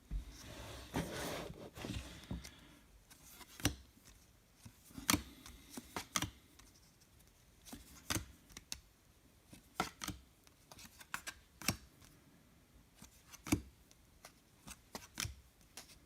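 Baseball trading cards being handled and flipped through one by one: a soft rustle for about the first two seconds, then scattered light clicks and snaps of card stock.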